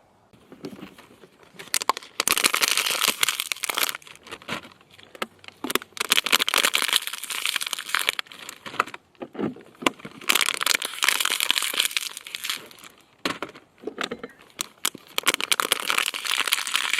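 Plastic bags and packaging being crinkled and handled, loud, in stretches of a few seconds with short pauses between.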